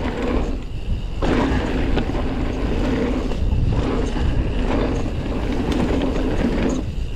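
Commencal Meta TR full-suspension mountain bike rolling fast over dusty, rocky singletrack: steady tyre and trail noise with a low rumble.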